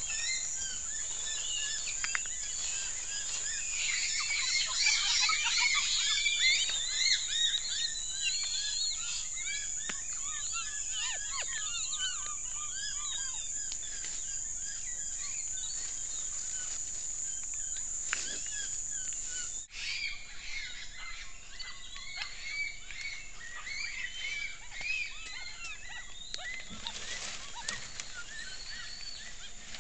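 Tufted capuchin monkeys giving many short, arching chirp calls, several voices overlapping, busiest in the first third, over a steady high-pitched hiss. The sound drops out briefly about two-thirds through.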